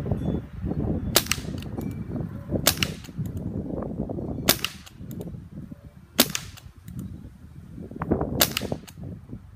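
Five shots from a .177 Benjamin Wildfire PCP air rifle: sharp cracks about one and a half to two seconds apart, over wind rumbling on the microphone.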